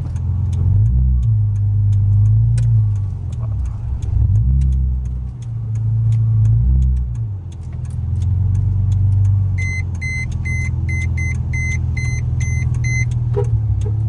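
Car engine running with its revs rising and falling as the car backs up to make way. Near the end comes a run of about ten short high beeps, about three a second.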